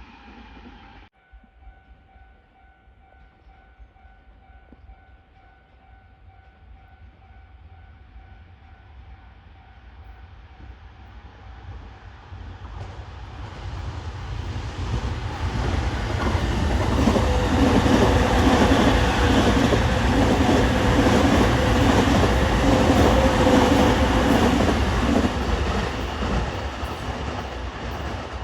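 An electric train approaching and passing close by: the running noise builds from faint, is loudest for several seconds past the middle, then fades near the end. Before it, after a sudden cut about a second in, only faint steady tones are heard.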